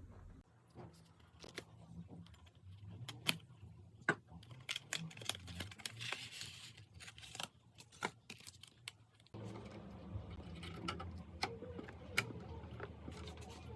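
Irregular small clicks, taps and a brief rustle of hard parts being handled during a PC assembly, over a low background hum that steps up about nine seconds in.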